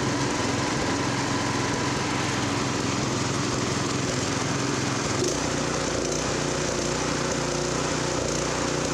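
Single-cylinder Honda GX160-clone four-stroke engine on a rototiller running steadily at high speed, near full throttle at about 3,500 rpm, while its maximum-speed screw is being set. About five seconds in, its note changes as the speed shifts.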